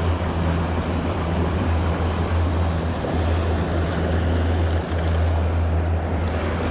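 A fishing boat's engine running steadily with a constant low hum, with water rushing along the hull.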